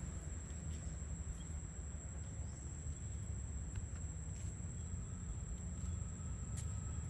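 Outdoor ambience of a steady, high-pitched insect drone over a low rumble, with a few faint clicks.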